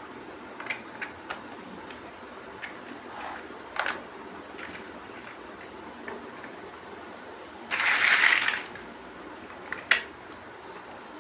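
Small plastic building-block pieces being handled and clicked together: scattered sharp clicks, a brief rattling rustle of pieces about eight seconds in, and a louder click near ten seconds.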